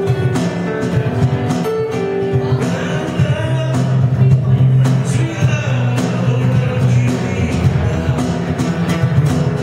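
Live acoustic band: a man singing into a microphone over a strummed acoustic guitar, with a cajon keeping a steady beat.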